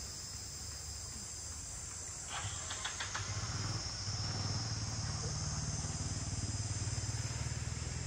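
Steady high shrilling of insects, such as crickets or cicadas. A few clicks come about two to three seconds in, and a low steady rumble starts with them and runs on, raising the level.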